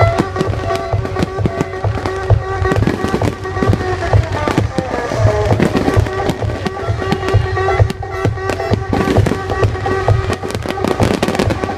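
Fireworks going off in quick succession, a dense run of bangs and crackles, over loud music with held tones and a low beat.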